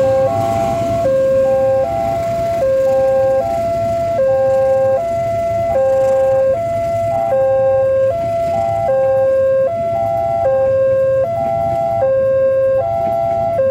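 Railway level-crossing alarm sounding a repeating electronic tone that steps between notes about every 0.8 s, warning road traffic while a train passes. Under it, the low rumble of the passing passenger train.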